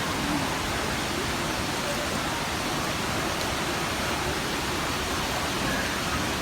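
Steady rush of a waterfall, water pouring down continuously with an even, unbroken hiss.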